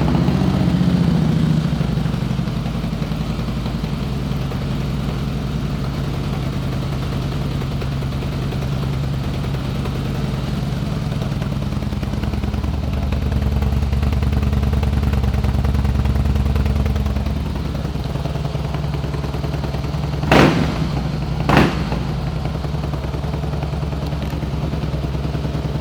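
2009 Harley-Davidson Softail Rocker Custom's Twin Cam 96 V-twin idling steadily through open, loud pipes, which sound like the muffler baffles have been removed. The idle swells a little about midway, and two short sharp pops come about a second apart near the end.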